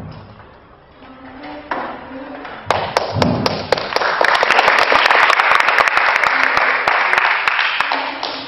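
Audience applauding: a few scattered claps about three seconds in swell into full, dense applause, which fades near the end.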